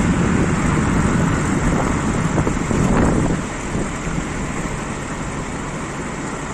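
Car driving on the road: steady engine, tyre and wind noise, a little louder in the first half. The wheel makes no noise of its own, its cracked brake drum having been replaced.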